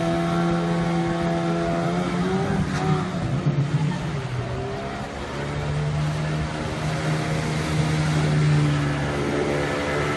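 Outboard motor on an inflatable boat running hard at high speed, its pitch wavering and dipping about three seconds in, then settling steady again, over the rush of water.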